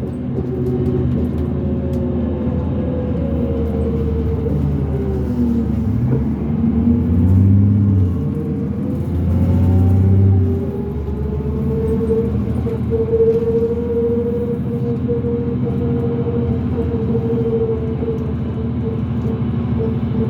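Interior sound of a 2005 New Flyer D40LF transit bus's Cummins ISL diesel and ZF automatic transmission pulling hard, the engine note rising and falling twice through the middle. A steady whine then sits over the drone through the second half, which the uploader takes for a weird axle noise.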